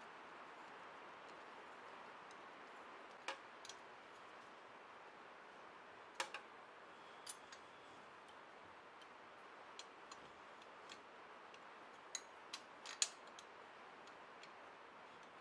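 Light, irregular metal clicks of a screwdriver and wrench working the carburetor's mounting bolts, scattered over a faint steady hiss. The loudest click comes near the end.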